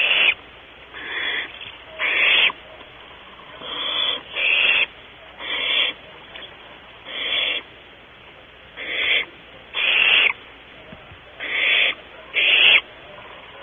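Barn owl owlet in the nest cavity giving repeated harsh hissing calls, about a dozen rasping bursts of roughly half a second each, coming about once a second; these are the typical food-begging calls of barn owl nestlings.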